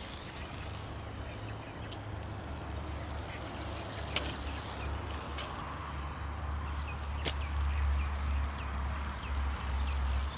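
Outdoor ambience with a steady low rumble that grows stronger in the second half, faint high chirps, and two sharp clicks, about 4 and 7 seconds in. No engine note from the flying model is heard.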